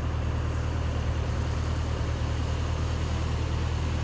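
Vehicle engine running with a steady low hum, heard from inside the cabin.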